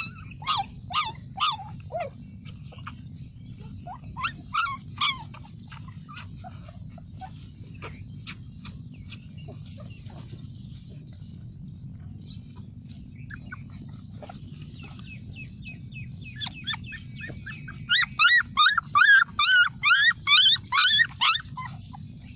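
Bulldog puppies whimpering and yipping in short, high-pitched calls: a few at the start, a couple about four seconds in, then a quick run of about three a second near the end. A steady low hum runs underneath.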